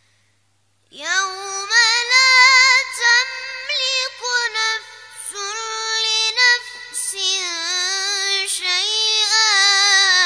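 A boy's high voice chanting Quran recitation (tajwid) in a melodic style, with long notes that waver and ornament in pitch, starting about a second in after a brief silence.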